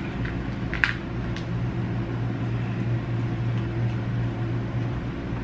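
Steady low hum of kitchen room tone, with a sharp click about a second in and a fainter one soon after.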